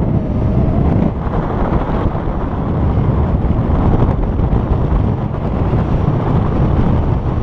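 Airflow buffeting a paraglider pilot's camera microphone in flight: a loud, steady, low rush of wind with small swells and dips.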